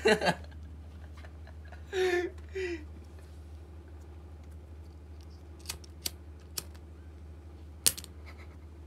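Low steady hum with a few scattered sharp clicks in the second half, and a brief muffled voice-like sound about two seconds in.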